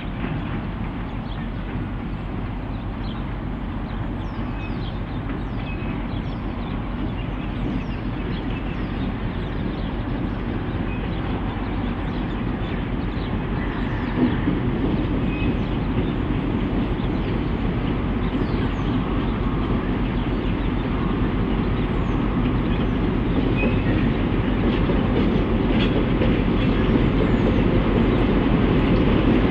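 Two EMD G22AR diesel-electric locomotives hauling a loaded train of four-wheel log wagons at low speed. The engines and wagon wheels on the rails make a steady run that grows louder as the train approaches.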